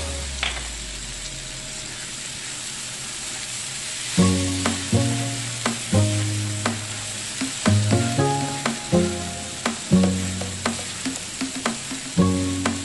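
Butternut squash cubes sizzling in a frying pan while being stirred with a spatula. Background music with held notes comes in about four seconds in.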